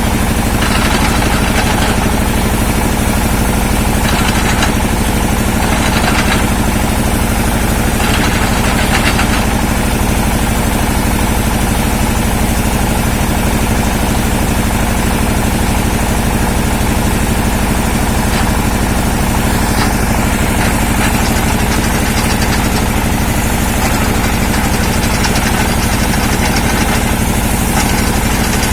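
Engine of an industrial well-drilling machine running steadily, with a few brief bursts of higher-pitched noise in the first ten seconds.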